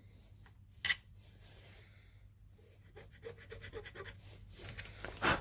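Small plastic parts of a power sander's casing being handled and fitted by hand: a sharp click about a second in, then faint rubbing and scraping with small ticks, and a louder knock near the end.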